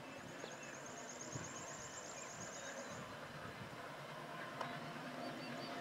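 Distant ALCo diesel locomotives running faintly, the engine hum slowly growing louder as the train approaches. A rapid, high chirping trill sounds over the first three seconds, and a few short high chirps follow near the end.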